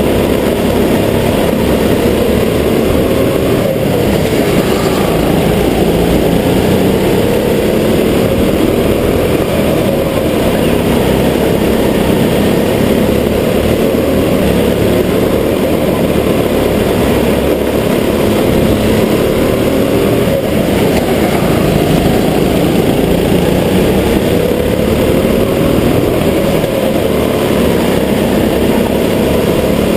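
Go-kart engine running under the driver, its pitch rising and falling over and over as the kart speeds up out of corners and eases off into them.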